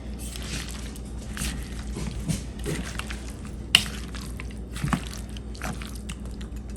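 Tongs stirring shredded pheasant meat coated in buffalo sauce and ranch in a bowl: irregular wet squishing with small clicks, and one sharper click about halfway through, over a low steady hum.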